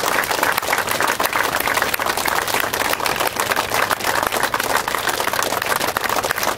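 A large crowd applauding, dense steady clapping that holds at an even level throughout.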